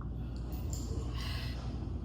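A short, forceful breath out through the nose, about a second in, over a steady low rumble.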